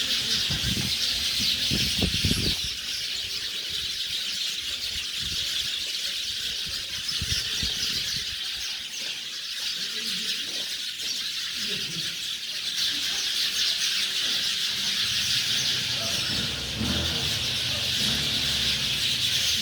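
A large flock of small birds chirping and chattering all at once in a dense, unbroken chorus: birds gathering in trees to roost at sunset.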